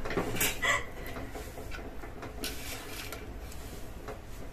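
A few light clicks and knocks of dishes and utensils being handled, the clearest about half a second in and again about two and a half seconds in, over a steady low hum.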